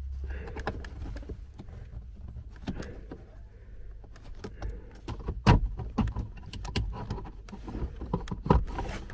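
Irregular plastic clicks, knocks and rattles as the heater blower fan of a Renault Logan / Lada Largus is twisted and worked loose from its housing behind the dashboard, with two louder knocks about five and a half and eight and a half seconds in.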